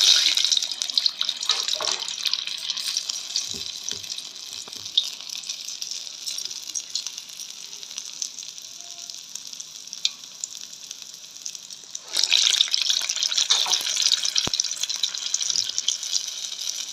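Urad dal vada batter dropped into hot oil, which sizzles up suddenly and then slowly settles. About twelve seconds in, the sizzle flares up again as another vada goes into the oil.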